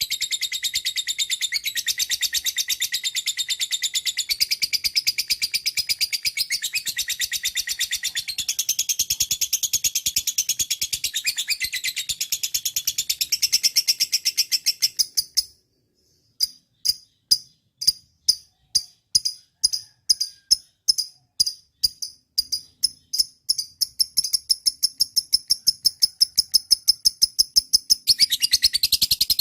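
Lovebird chattering in a long, very rapid, unbroken high trill. About halfway through it breaks off briefly, restarts as separate sharp chirps that quicken into a fast run, and the dense trill returns near the end.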